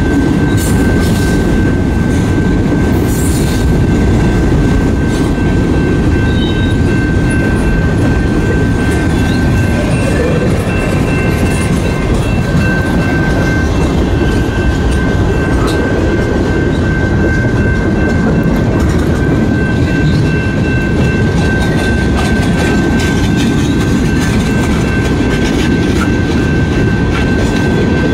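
Freight train cars of a CN mixed freight rolling past close by: a loud, steady rumble of wheels on rail with many small clicks, and a steady high ringing tone above it.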